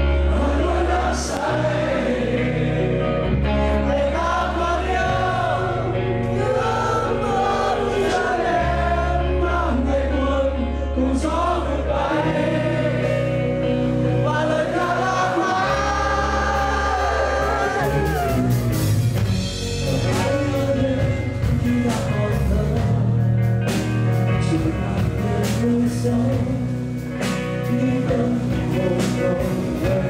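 Live rock band playing loudly: a singer's voice over electric guitars, bass and drums.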